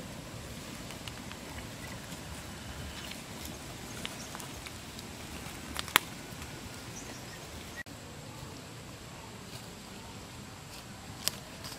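Bare feet walking over dry leaves and twigs, with scattered light crackles and one sharp snap about six seconds in, over a steady outdoor background.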